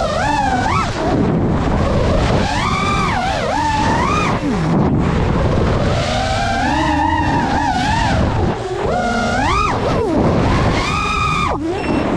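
FPV racing-quadcopter motors and propellers whining, the pitch sweeping sharply up and down every second or two as the throttle is punched and cut, over a constant rush of noise.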